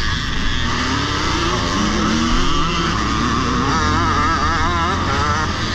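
Vintage motocross motorcycles racing at close quarters, their engines loud and steady, rising and falling in pitch as the riders work the throttle. About four seconds in, a higher wavering engine note joins in.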